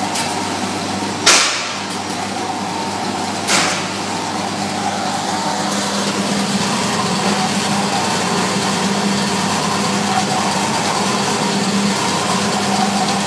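Small gas-fired peanut roaster running, its belt-driven drum and motor humming steadily, with two sharp knocks, about a second in and about three and a half seconds in.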